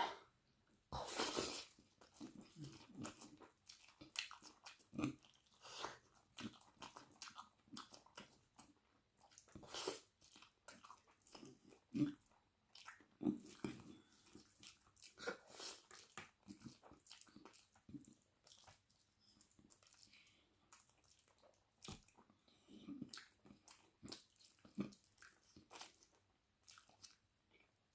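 Close-miked eating sounds: irregular chewing and biting of spicy chicken wing curry with rice, with some crunchy bites and small mouth clicks, stronger bites a few seconds apart.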